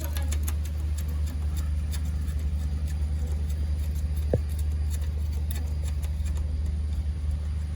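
A steady low drone runs throughout, with light, scattered metallic clicks of a hand tool working on the generator's mounting bolts. A short, high ping comes about four seconds in.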